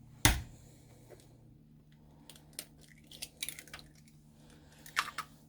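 An egg shell cracked sharply against a bowl just after the start, then scattered faint crackles and clicks of the shell being pulled apart and handled, with another sharper click near the end.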